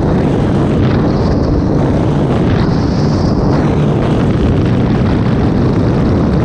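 Loud, steady aircraft engine noise, heaviest in the low end, with no breaks.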